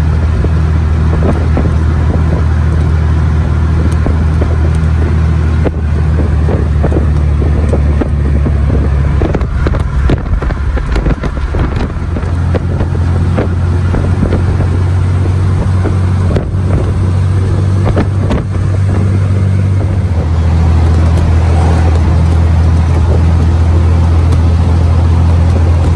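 Vintage military vehicle's engine running steadily under way, a loud low drone with road and wind noise over it. The drone eases off about twelve seconds in and strengthens again at about twenty seconds.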